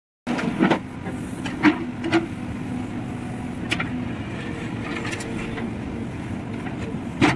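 Tata Hitachi Shinrai backhoe loader's diesel engine running steadily as it works its digging arm, with a few sharp knocks as the bucket dumps soil into the trolley and digs into the pile, the loudest near the end.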